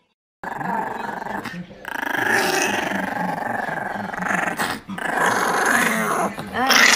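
Small white curly-coated dog growling in a long, continuous rumble that starts about half a second in, with a brief break a little before the end.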